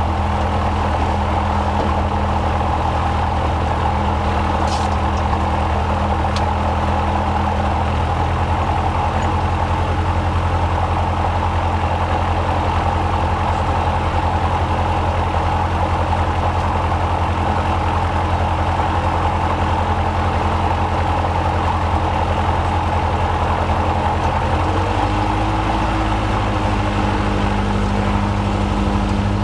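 Robin HR200 light aircraft's piston engine and propeller idling steadily, heard from inside the cockpit. About 25 seconds in the engine note shifts as power is added and the aircraft starts to taxi.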